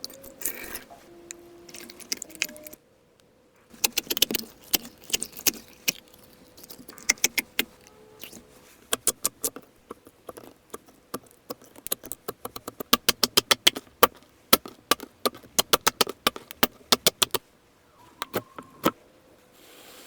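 Slime being squeezed and pressed, making quick runs of sharp, crisp pops and clicks, several a second.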